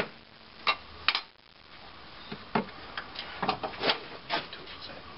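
Irregular sharp clicks and light knocks of plastic parts and clips being handled in a pickup truck's engine bay, with the engine off.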